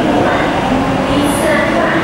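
MTR Kwun Tong Line electric train pulling out of the platform and gathering speed. The wheels rumble on the rails while the traction motors whine, their tones shifting in pitch.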